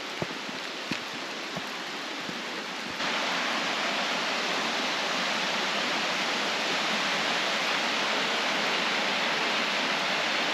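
Steady rush of flowing water from a rainforest creek and waterfall, with a few faint ticks in the first couple of seconds; the rush steps up suddenly about three seconds in and holds steady.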